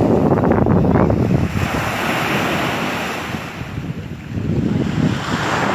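Sea waves breaking on a beach, swelling and easing, with wind buffeting the microphone.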